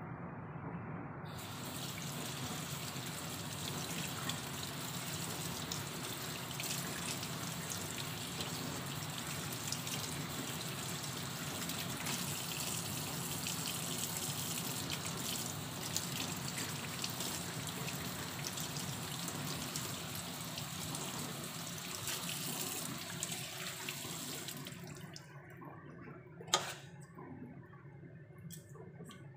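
Water from a kitchen tap running onto hands and into a stainless steel sink. It starts about a second in and is turned off near the end, followed by a single sharp click.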